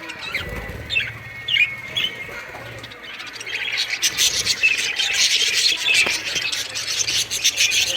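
Captive home-bred birds calling: a few separate high chirps at first, then from about halfway a dense, continuous chatter of many calls.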